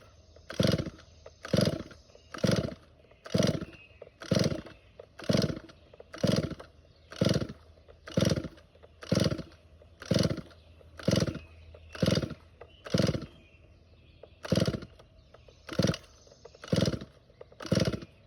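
Stihl 021 chainsaw's recoil starter cord being yanked over and over, about once a second, about nineteen pulls, each a short rasping zip. The engine never catches: a saw that has sat unused for a while and will not start.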